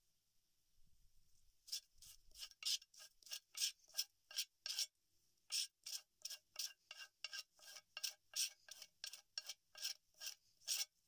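Rapid rasping strokes of a scraper drawn along a green yucca leaf pressed on a flat stone, stripping the pulp to free the fibres for cordage. About three strokes a second, starting a couple of seconds in, with a short pause near the middle.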